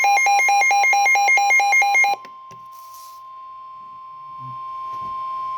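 Weather-radio alert: loud, rapid electronic beeping, about five beeps a second, cuts off about two seconds in. Beneath it and after it, the steady single warning alarm tone of NOAA Weather Radio (1050 Hz) sounds continuously and grows louder, signalling a warning is about to be read.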